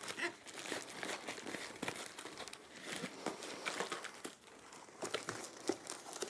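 Packaging being handled as the box is emptied: cardboard and plastic crinkling and rustling, with scattered small crackles and knocks.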